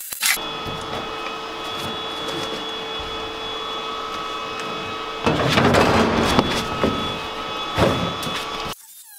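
MIG welding on sheet-steel car floor pan: a brief burst of arc crackle at the start, a longer one of about a second around five seconds in and a short one near eight seconds, over a steady hum with several fixed tones. Everything cuts off abruptly near the end.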